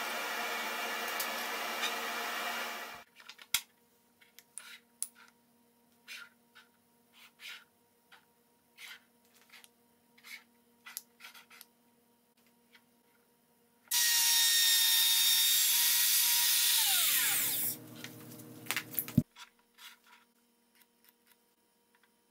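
A table saw motor runs steadily and cuts off about three seconds in, followed by light clicks and taps of small wooden pieces being handled. About fourteen seconds in a power tool starts and runs loudly for a few seconds, then winds down with a falling pitch and stops abruptly.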